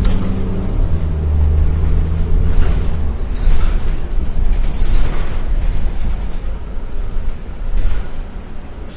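Cabin of a New Flyer D40LF diesel city bus on the move: the Cummins ISL9 engine running under road noise, with scattered brief knocks and rattles. The sound eases off a little near the end.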